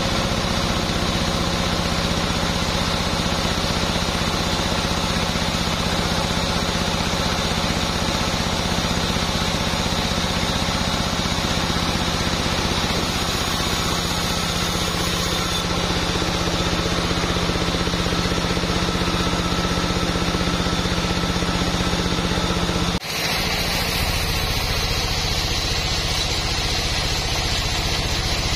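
Band sawmill running and sawing through a hardwood log: a steady machine drone with a held pitched whine on top. About 23 seconds in the sound drops out for an instant and resumes with a slightly duller tone.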